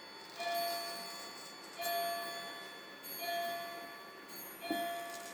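A clock bell striking the same note over and over, about every second and a half, each stroke ringing and then fading.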